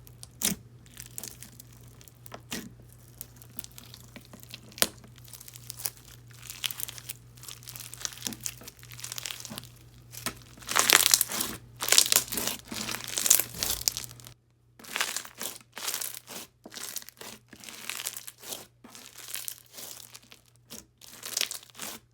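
Crunchy white-glue slushy slime being squished and pressed by hand, giving a stream of small crackles and pops. The crunching is densest and loudest around ten to fourteen seconds in.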